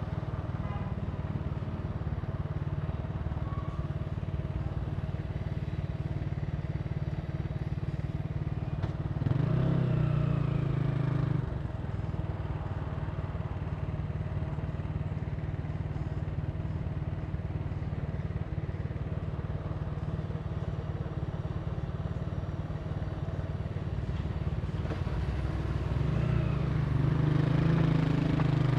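Italika TC300 motorcycle engine running steadily under way. It swells louder twice, for about two seconds some nine seconds in and again near the end.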